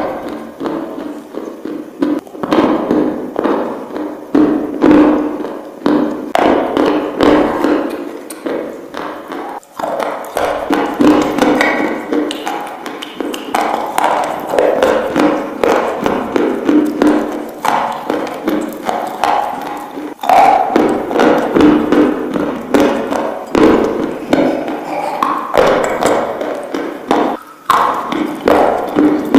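Close-up crunching as a person bites into and chews hard, crumbly white chunks: many sharp crunches and cracks in quick, irregular succession.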